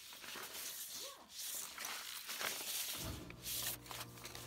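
Sheets of paper being handled and slid off a concrete step, rustling in short bursts; a low steady hum starts about three seconds in.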